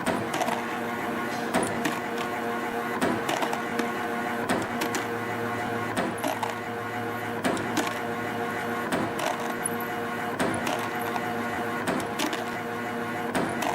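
CNC compression spring coiling machine running, a steady mechanical whir with held tones and a sharp click about every one and a half seconds, with lighter clicks in between.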